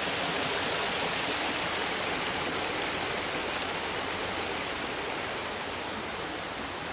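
Water rushing out through a canal lock's gates and paddles as the lock is let down: a steady rushing that eases slightly near the end.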